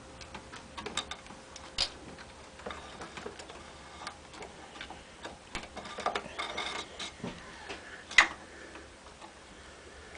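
Scattered light clicks and rustles of a wire harness being handled and routed under a metal bracket beneath a pinball playfield, with one sharper click about eight seconds in.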